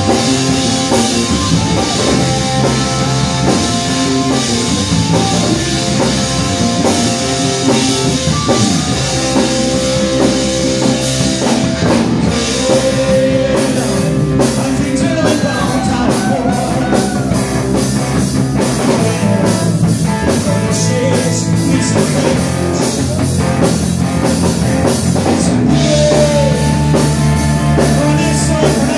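Live rock band playing amplified through PA speakers: drum kit, electric bass and electric guitar, with saxophone and a singer on the microphone.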